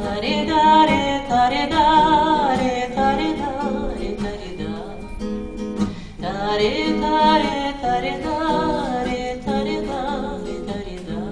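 A woman singing to her own classical guitar accompaniment. She sings two phrases, one at the start and one from about six and a half seconds in, with the guitar playing on alone between them.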